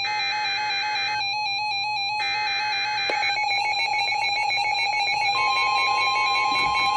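NOAA Weather Radio receivers sounding a severe thunderstorm warning: bursts of the buzzy SAME digital header, then about five seconds in the steady alert tone begins, while a weather radio's electronic alarm pulses on throughout.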